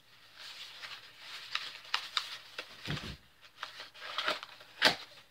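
Paper wrapping rustling and crinkling as it is pulled off an object by hand, with many sharp crackles, the loudest near the end. A dull knock about three seconds in.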